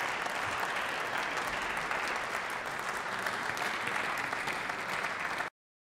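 Members of parliament applauding in a large chamber, a steady clatter of many hands clapping that cuts off abruptly near the end.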